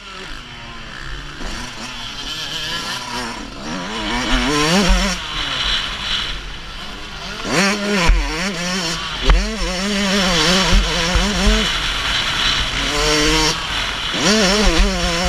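Two-stroke motocross bike engine at race throttle, revving up and dropping back again and again through the gears, over a steady rush of wind. Two sharp knocks come about eight and nine seconds in.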